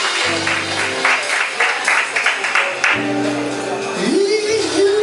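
Music with a quick steady beat over held bass chords that change every second or so.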